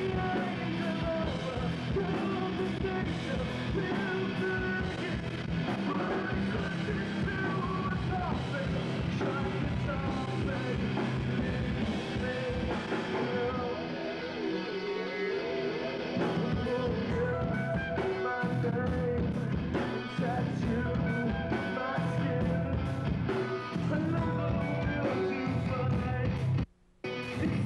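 Live rock band playing, with electric guitar and drums. The sound drops out for about half a second near the end.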